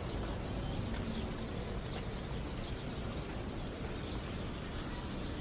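Steady background noise of a busy street, with a few faint clicks.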